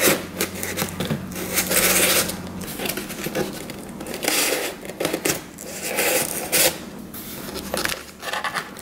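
Cardboard and paper being handled: a white paper tab slid out of its slot in a homemade shoebox vending machine and the box moved about, giving a run of irregular rustling and scraping strokes.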